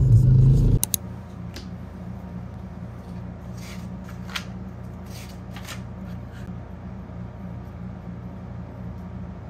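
A loud low rumble that cuts off suddenly under a second in, then the paper pages of a spiral-bound notebook being handled and turned: a series of short rustles and light taps over a faint steady hum.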